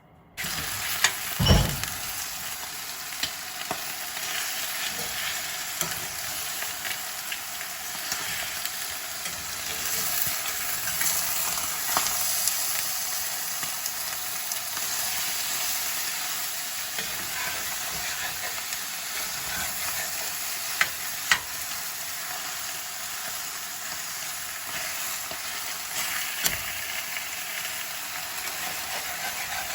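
Beef brisket fat and meat trimmings frying in a cast iron skillet: a steady sizzle as the fat renders out, with scattered sharp pops. There is a heavy knock about a second and a half in.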